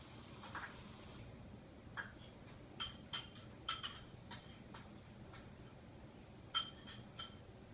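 A spoon clinking against a dish: about a dozen light, ringing clinks at uneven intervals, starting about two seconds in.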